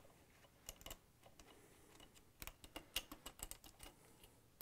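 Faint light clicks from a Phillips screwdriver backing a screw out of a stand mixer's trim band and the band being pulled free, with a few clicks early and a denser run of clicks in the second half.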